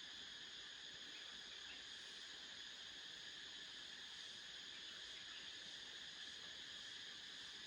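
Faint, steady chorus of insects, several high tones held without a break.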